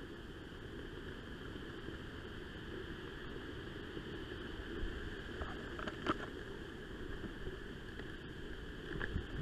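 Steady low rustling noise with a few faint short clicks, about six seconds in and again near the end.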